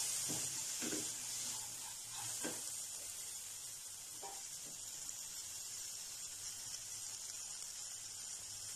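Chillies and peanuts sizzling in an oiled nonstick pan with the flame just turned off. The sizzle dies down over the first couple of seconds to a faint steady hiss as the pan cools. A few soft scrapes and taps of a silicone spatula stirring them come in the first few seconds.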